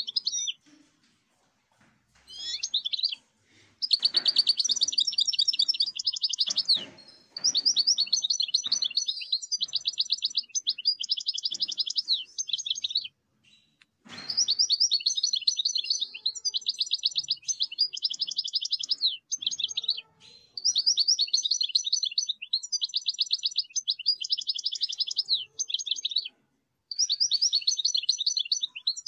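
A common linnet sings long bursts of fast, high twittering, each several seconds long, with short breaks between them.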